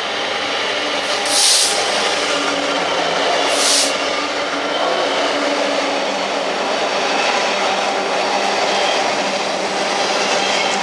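A train running at the station: a steady, loud mechanical rumble with several held tones. Two short hisses come about a second and a half in and again just under four seconds in.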